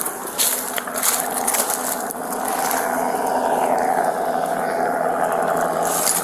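Footsteps crunching through dry leaves and underbrush, with crackling steps in the first couple of seconds, over a steady mechanical drone.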